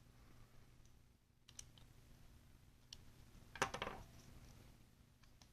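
Faint small metal clicks and taps as the parts of a Spyderco Para 3 folding knife are handled and screwed back together at the pivot. A short burst of rattling clicks a little past the middle is the loudest.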